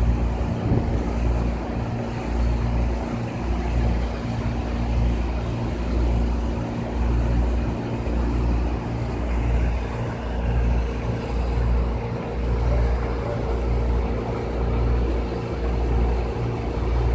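A large engine running steadily at a constant pitch, with wind buffeting the microphone in uneven gusts.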